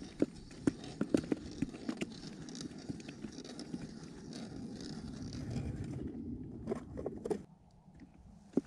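Wind buffeting the microphone, a low rumbling noise broken by scattered sharp clicks and knocks, most of them in the first couple of seconds and a few more around seven seconds in. The wind noise drops away suddenly about seven and a half seconds in.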